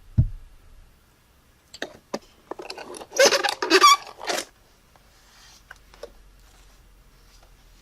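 Product packaging being handled while unboxing: a few sharp clicks, then a loud burst of crinkling and rustling about three seconds in.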